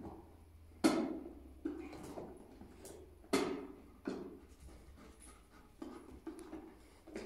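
A series of irregular knocks and bumps, about one every second or so, each with a short ringing tail.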